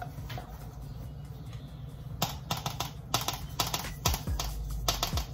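A spoon stirring a thick sauce in a clear cup, knocking and scraping against its sides in quick, irregular clicks that start about two seconds in.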